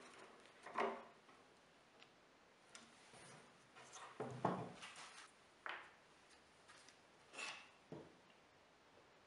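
Quiet scattered knocks, clicks and rubs of hand work at a wooden workbench: a screw turned in by hand screwdriver, a bar clamp loosened and taken off, and plywood pieces handled and set down. The loudest knocks come in a cluster about halfway through.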